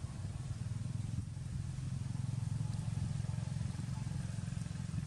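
An engine running steadily with a deep, rapidly pulsing rumble.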